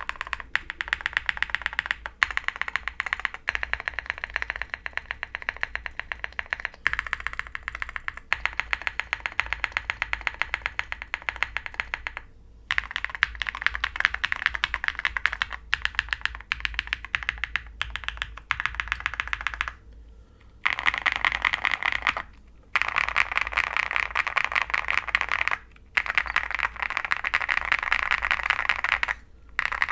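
Fast, continuous typing on a custom mechanical keyboard: an OwLabs Jelly Epoch with a polycarbonate plate, full foam, lubed Konpeitou linear switches and MT3 PBT keycaps. A dense run of key clacks stops briefly a few times.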